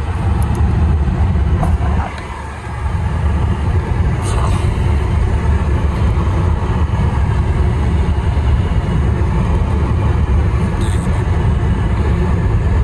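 Road and engine noise inside the cabin of an older Toyota Camry on the move: a steady low rumble that dips briefly about two seconds in.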